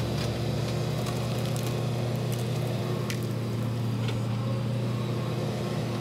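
Case CX210D excavator's diesel engine running steadily under work, with scattered sharp clicks and cracks over it.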